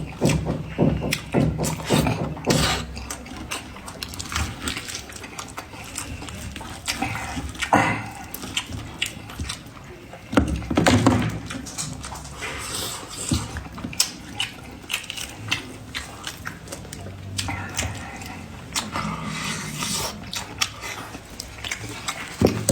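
Close-miked eating of spiced sheep's head meat: irregular chewing, gnawing and wet lip smacks, with many sharp clicks and a few louder bites.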